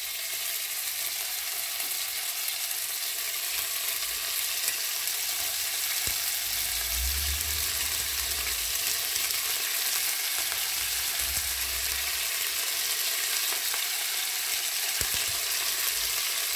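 Minced beef sizzling as it is dropped in small pieces into hot oil in a stainless steel pan. The sizzle grows a little louder over the first few seconds as more meat goes in, then holds steady.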